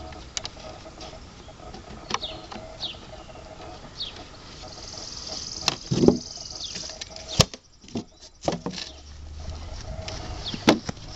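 Wooden beehive frames and boxes being handled: a few scattered sharp knocks, with several short, high, falling chirps in the background.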